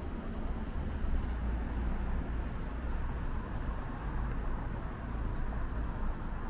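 Street ambience dominated by road traffic: a steady low rumble of vehicles.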